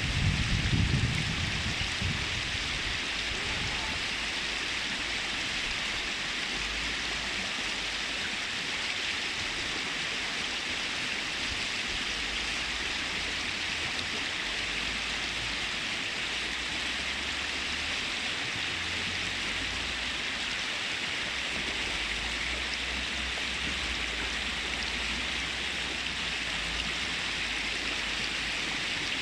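Mountain river rushing steadily over its bed, a continuous even hiss of running water, with a brief low rumble right at the start.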